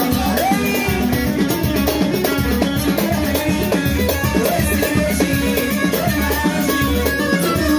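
Live Moroccan popular band music: a melody line, likely violin, over a steady drum and percussion beat, with no singing.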